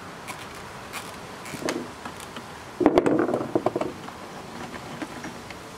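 Socket wrench with extension clicking and rattling as it loosens a bolt on a generator's air-cleaner housing, a quick run of clicks loudest a little under halfway through.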